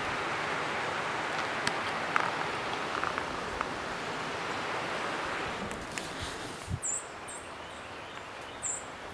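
Steady rushing of a river, louder for the first two thirds and then falling back, with a few light knocks. Near the end a small bird chirps three times, short and high.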